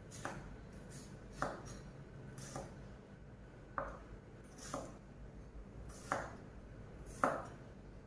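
Kitchen knife slicing a yellow bell pepper on a wooden cutting board: about seven separate knife strokes down onto the board, roughly one a second and unevenly spaced.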